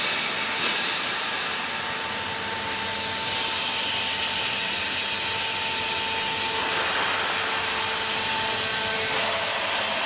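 Hydraulic power unit of a vertical textile baling press running steadily while the press plate is raised: a continuous hiss with a faint steady whine that drops away near the end.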